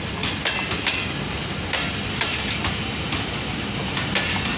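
Pakistan Express passenger coaches rolling past at speed: a steady rumble of wheels on rails, with sharp clacks at irregular intervals as the wheels cross rail joints.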